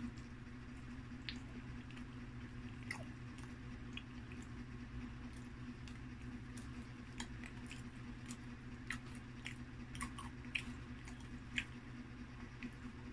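Close-up chewing of pizza, with irregular wet mouth smacks and clicks, over a steady low hum.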